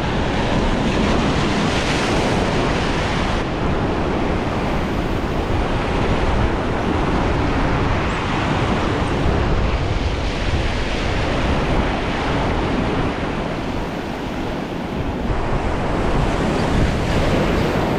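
Ocean surf washing in and out, loud and unbroken, with wind buffeting the microphone.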